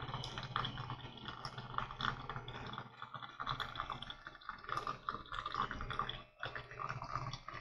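Coffee trickling and dripping from a Pamapic portable electric K-cup brewer into a cup, an irregular run of small wet ticks over the brewer's faint steady pump hum. A brief break in the sound about six seconds in.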